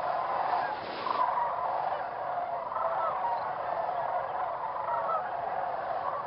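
A large flock of Canada geese honking in a dense, continuous chorus of many overlapping calls.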